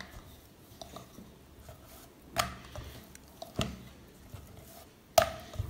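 Wooden rolling pin rolling out bhatura dough on a wooden board, with three sharp knocks in the second half.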